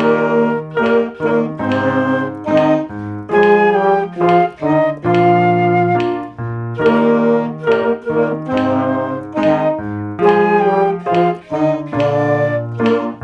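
Play-along backing music for a school band piece, with piano to the fore, playing melody and chords.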